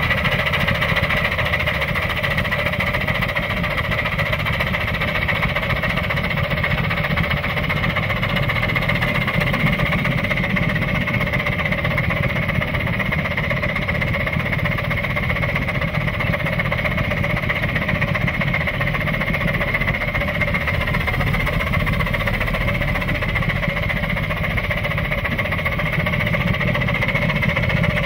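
Oil-fired 9-inch-gauge live steam locomotive running along the track at the head of a long, loaded passenger train: a steady, even mechanical rumble with no break or change.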